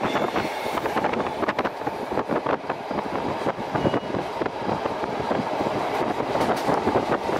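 A moving train heard from on board: a steady rumble of wheels on rail, with many irregular clicks and clatters as the wheels run over points and rail joints.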